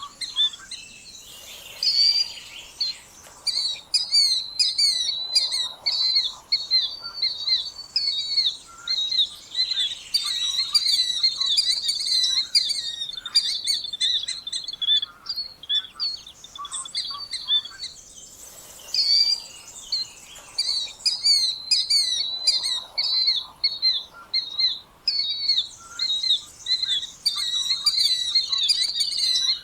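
Killdeer calling: a fast, busy run of shrill repeated notes, with sharper chirps above them.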